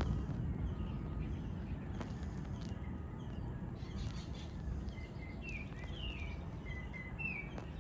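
Thunder rumbling away, fading over the first second and leaving a steady low rumble. In the second half, birds chirp a run of short falling notes.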